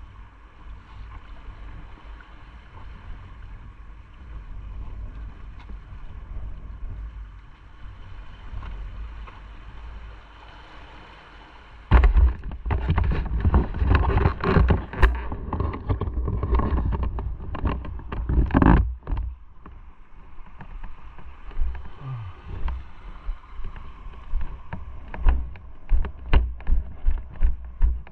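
Wind buffeting the microphone of a riding motorcycle over engine and road rumble. The buffeting turns loud about twelve seconds in and eases after a few seconds. Near the end it comes as rhythmic low thumps about twice a second.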